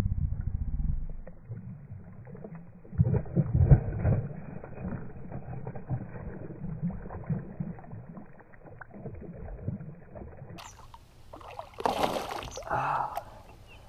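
A hooked bass splashing and thrashing at the water's surface beside a kayak. The sound is muffled, loudest near the start and again about three to four seconds in.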